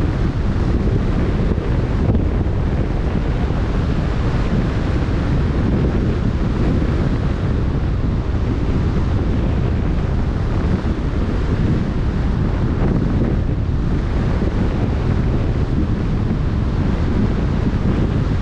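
Wind buffeting the microphone over the steady wash of choppy open-sea water around a sailing boat underway, a loud, even rush heaviest in the low end.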